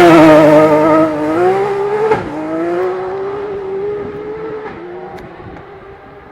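Rally car engine accelerating hard away, loudest at first. The note climbs, drops with a gear change about two seconds in, then climbs again as the car fades into the distance.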